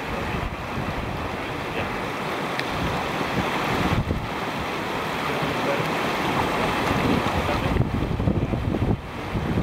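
Whitewater rapids rushing steadily around river boulders, with wind buffeting the microphone in uneven low rumbles.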